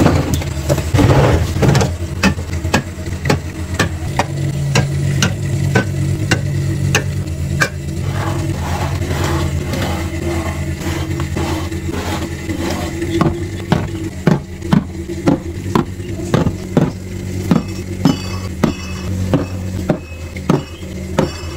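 Repeated light taps and clicks of objects being handled, over a steady low hum.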